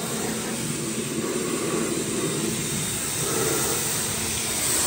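Pressure washer running, its water jet hissing steadily against the mud-caked underside of a pickup truck, over the constant hum of the washer's motor.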